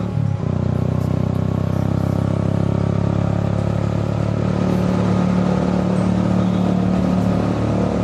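Motorcycle engine running steadily under way, recorded from the rider's helmet camera. The engine note dips briefly just after the start, then holds steady and gets a little stronger from about halfway.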